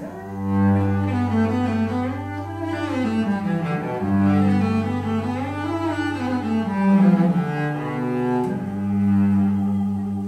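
Cello and sheng duet: a low held note under a slow melodic line that rises and falls in arpeggio-like sweeps.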